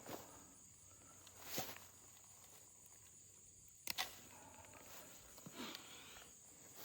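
Faint footsteps and rustling through pasture grass, with two sharp clicks just before four seconds in, over a steady high-pitched insect drone.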